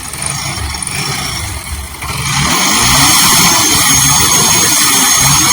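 Bajaj Pulsar AS150's single-cylinder engine running with an abnormal, harsh noise; the engine speed rises about two seconds in and holds higher. The engine is also throwing white smoke, and the mechanic takes the noise for an internal engine fault that needs a teardown.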